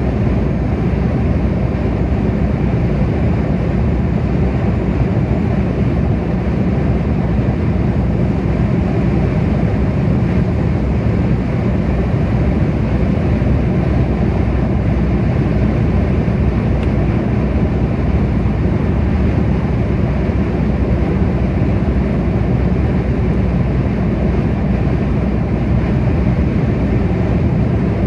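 Car cruising at motorway speed: steady tyre and road noise with engine hum, heaviest in the low end and unchanging throughout.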